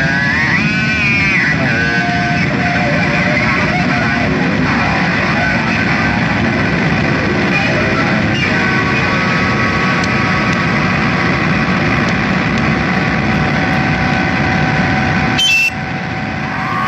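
Harsh noise music from amplified electronics: a loud, dense distorted wash with high tones that swoop up and down at first and then hold steady. It breaks off abruptly near the end.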